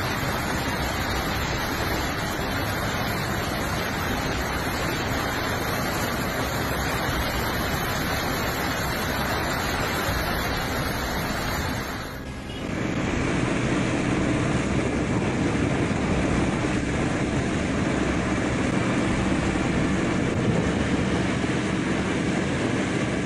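Flash floodwater rushing and churning down a street, a loud, steady rush of water. About twelve seconds in, it cuts to another recording: water and rain on a flooded road, with traffic.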